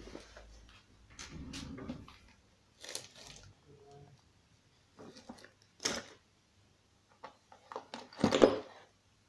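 Workshop handling sounds as chainsaw parts and tools are picked up and set down: scattered clicks and knocks with soft rustling between them, the loudest knock near the end.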